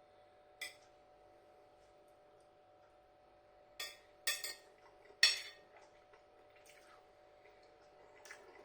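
Cutlery scraping and tapping in a ready-meal tray as curry and rice are gathered together: a handful of short, sharp clicks and scrapes spread over several seconds, the loudest about five seconds in.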